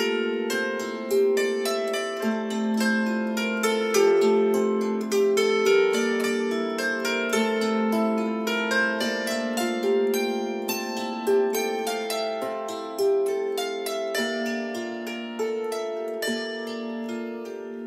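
A 19-string Bayun gusli, a trapezoidal Russian lap psaltery made by the Guselnik workshop, played with the fingers. A continuous run of plucked notes, several a second, rings over one another, with lower notes sustained beneath the higher ones.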